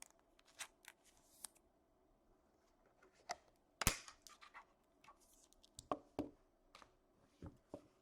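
Hockey trading cards being handled and shuffled: a faint scatter of short clicks and scrapes, the sharpest a little under four seconds in.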